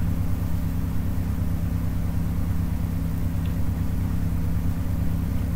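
A steady low hum, unchanging throughout, with no other clear sound.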